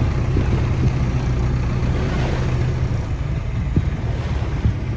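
Wind rumbling on the microphone over the steady low drone of a boat's motor, with a couple of soft knocks near the end.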